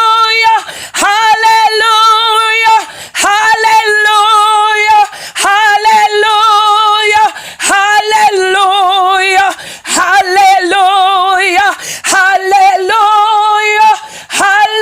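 A woman singing a series of long wordless held notes, each about two seconds, on nearly the same high pitch with a wavering vibrato, broken by short gaps with sharp taps.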